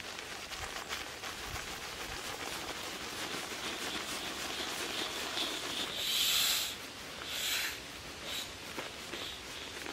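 Inflatable sleeping pad being rolled up to deflate: air hissing out of its valve, with two louder rushes of air about six and seven and a half seconds in as the pad is pressed, and the pad's fabric rustling.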